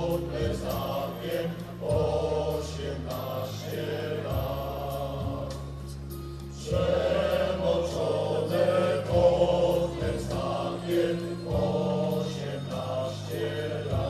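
Music: a choir singing over low held chords that change every second or two.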